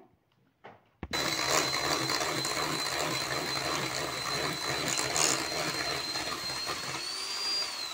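Electric hand mixer switched on about a second in, its motor running with a steady high whine as the beaters cream butter and sugar. Near the end it winds down, the whine falling as it is switched off.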